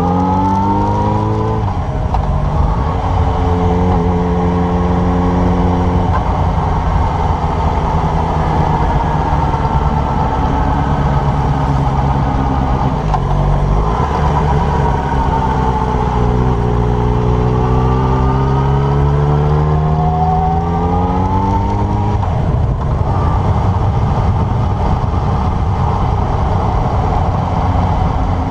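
Yamaha motorcycle engine running while being ridden. Its pitch rises as it accelerates about a second in and again from about 16 to 22 seconds, with a dip between, over heavy wind rumble on the microphone.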